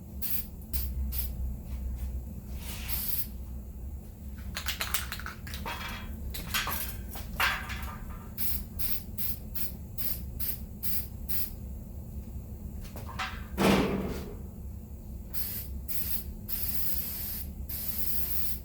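Aerosol spray-paint can sprayed in many short bursts of hiss, with a few longer passes near the end. There is a louder knock about three-quarters of the way through.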